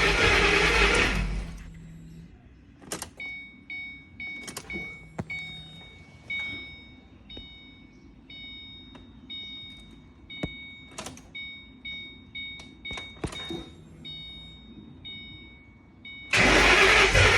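2006 Saleen's V8 being cranked over by the starter without catching, which the owner takes for a fuel pump problem. The cranking stops about a second in; then a car's warning chime beeps on and off with a few clicks, and the cranking starts again near the end.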